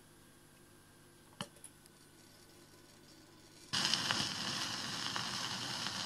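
Victor RE-44 radio-phonograph with a 78 rpm shellac record: a faint click about a second and a half in as the tonearm is handled, then the stylus drops into the groove and loud, even surface hiss with crackle starts suddenly before the music begins.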